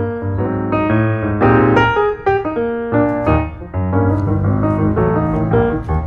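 Piano music: a melody of separate notes over sustained low notes.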